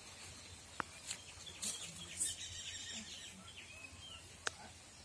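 Faint outdoor ambience with a few soft bird chirps, two sharp clicks (about a second in and near the end), and a brief light scrape in between.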